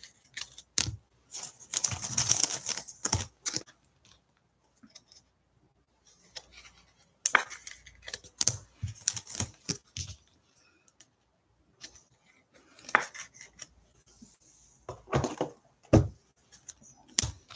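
Off-and-on rustling, scraping and clicking of trading cards and stiff plastic top loaders being handled. Near the end comes a sharp knock as a cardboard blaster box is set down on the table.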